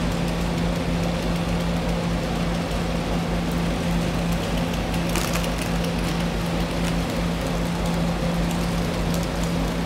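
Engines of a tree crew's heavy equipment running steadily at constant speed, a steady low hum under broad engine noise. Brief crackling about five seconds in.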